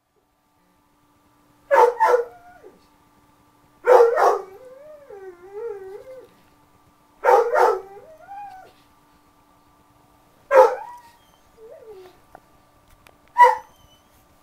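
A man imitating a dog: five short barks about two to three seconds apart, the first three doubled, with a wavering, whining howl after the second and third.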